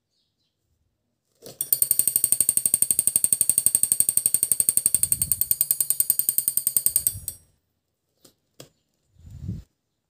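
Homemade magnetic door alarm going off as the door is opened: a small DC motor spins a striker against an upturned steel cup, giving a rapid, even metallic rattle with a high ringing tone for about six seconds, then it stops suddenly. Two light clicks and a soft thud come near the end.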